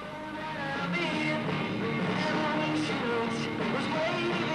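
Rock music with guitar and singing, fading up over the first second.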